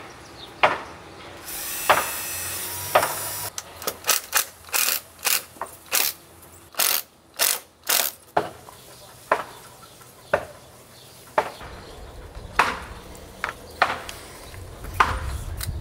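Hand ratchet wrench driving lag screws into a wooden boat's transom to fasten a steering pulley: repeated short ratchet strokes, about two a second, that grow sparser later on. A rushing hiss of about two seconds comes near the start.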